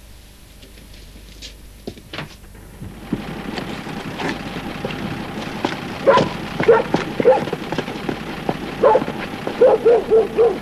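A dog barking repeatedly over a steady hiss, the barks starting about halfway through and coming in quick runs near the end. A few sharp knocks sound about two seconds in.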